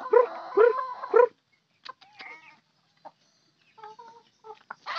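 A domestic animal calling in a quick run of four or five loud pitched calls during the first second and a half, then a few fainter calls and light clicks.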